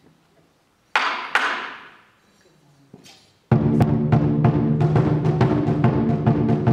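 Two sharp crashing hits that ring away about a second in, then from about halfway a loud drum-led music track: a fast, steady drum beat of about four to five strikes a second over held low tones.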